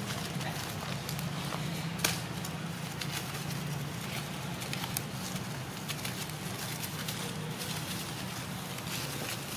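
Light rustling and crackling of grass and dry leaves over a low steady rumble, with one sharp click about two seconds in.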